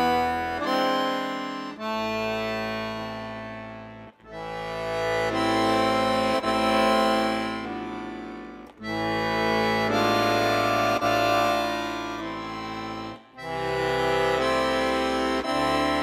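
Background music of held, sustained chords in phrases of about four to five seconds, with a brief break between each phrase.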